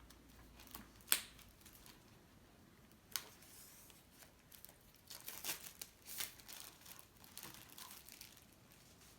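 Apple Watch packaging being opened by hand, with plastic crinkling and tearing. There is a sharp snap about a second in and another at about three seconds, then a run of crinkling and tearing through the middle and later part.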